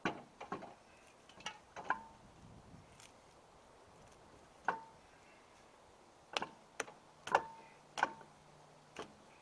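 A dozen or so scattered sharp metal clinks and knocks, some ringing briefly, from lug nuts and tools being handled while a wheel is refitted.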